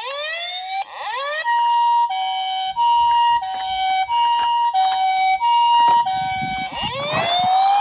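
Japanese ambulance siren in its two-tone high-low pattern, switching between the two pitches about every 0.6 s, with a rising wail at the start and again near the end. A low rumble joins in from about halfway.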